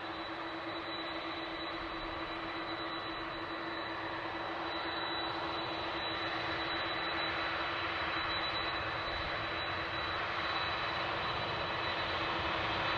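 Jet airliner engines, a steady noise with a faint whine, growing gradually louder.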